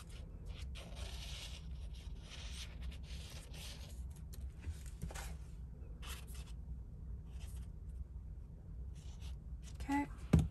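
Soft rustling and scraping of cardstock being handled while white liquid glue is squeezed from a plastic bottle onto a die-cut paper frame, with one sharp tap near the end.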